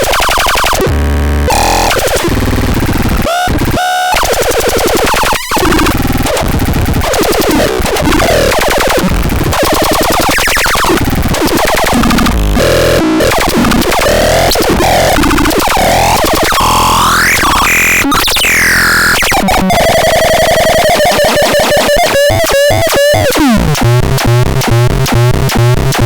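Synthesizer playing harsh, noisy electronic tones with constantly shifting pitch. Near the end come rising sweeps, then a fast wobbling tone and a falling sweep.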